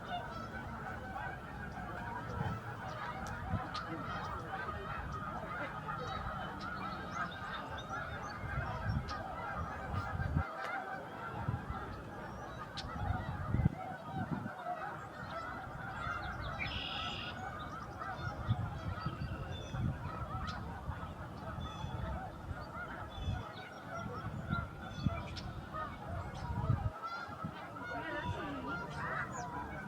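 A large flock of wild geese honking and calling all at once, a dense, unbroken chorus of overlapping calls, with low rumbling gusts underneath.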